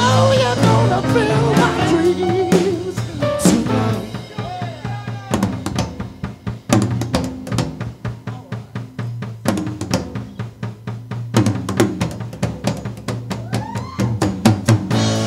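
Live rock band with the drummer taking a solo on a drum kit: fast snare, tom and bass drum strokes with cymbal hits. The rest of the band drops out about four seconds in, leaving the drums over a low held note, and a guitar slides back in near the end.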